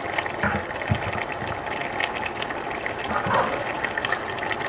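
A steady watery hiss with a few soft, low thumps, as halved grapes drop onto curd rice in a pot.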